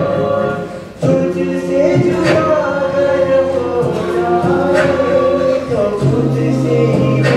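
A mixed-voice collegiate a cappella group singing an Indian–Western fusion arrangement through microphones, with layered harmony parts over a low sustained bass voice. The sound thins out and drops in loudness shortly after the start, then the full group comes back in sharply about a second in.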